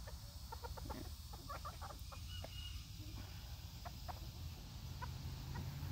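Young bantam cockerels clucking softly, a few short scattered clucks, most of them in the first three seconds, with one brief high note a little past two seconds in.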